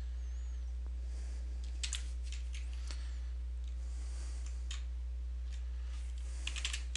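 Scattered computer keyboard keystrokes over a steady low hum, with a quicker run of typing near the end.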